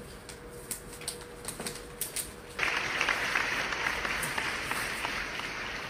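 Crackling rustle of a plastic flour bag being squeezed and shaken to force flour out of a small hole. Light scattered clicks at first, then the dense crackle starts suddenly about two and a half seconds in.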